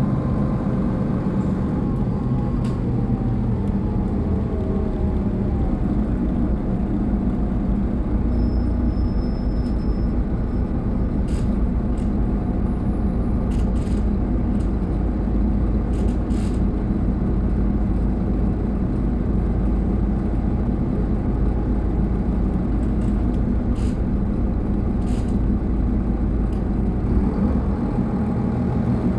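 Solaris Urbino 18 III articulated city bus's diesel engine idling steadily, with a few light clicks over the low rumble.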